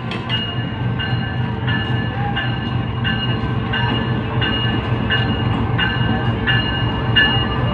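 Diesel locomotive rumbling as it pulls slowly into the station, with a high ringing tone repeating about every two-thirds of a second.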